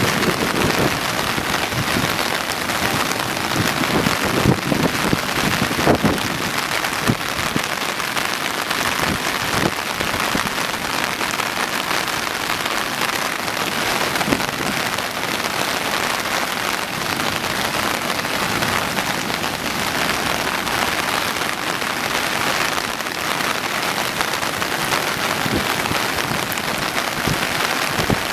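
Steady heavy rain hissing during a typhoon, with a few low thumps between about four and seven seconds in.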